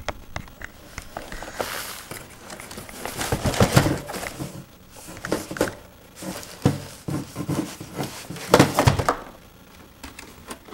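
Cardboard box parts and plastic-bagged packing being handled: irregular crinkling and rustling with a few short knocks, loudest around four seconds in and again near nine seconds.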